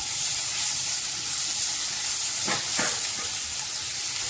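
Onions and tomato pieces sizzling in a little hot oil in a non-stick kadhai, a steady hiss, with two brief clicks a little over two and a half seconds in.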